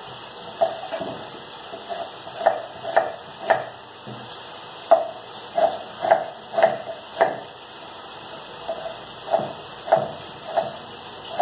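Kitchen knife chopping an onion on a wooden cutting board: an uneven run of short sharp knocks, about two a second, with brief pauses between runs.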